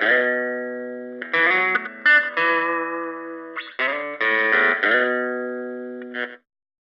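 Strat-style electric guitar with single-coil pickups playing chords that are struck and left to ring and fade, the same phrase played twice; the sound cuts off suddenly near the end.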